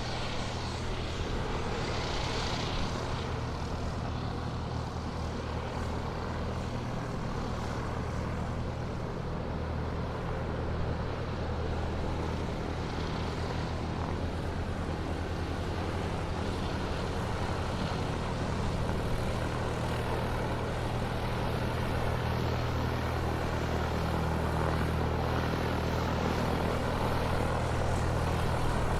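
Airplane engines running steadily as the aircraft taxis, a low even drone that grows slightly louder toward the end.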